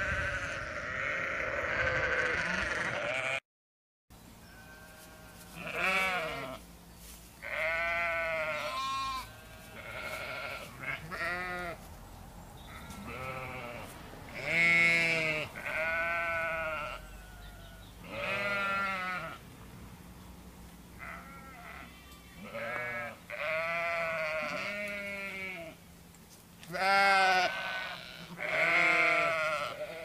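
Domestic sheep bleating, many calls from several animals at irregular intervals and sometimes overlapping, each call rising and falling in pitch. A short break of silence falls about three and a half seconds in.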